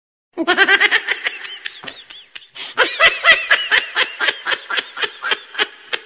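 Hearty laughter: a fast string of short ha-ha bursts, strongest from about three seconds in.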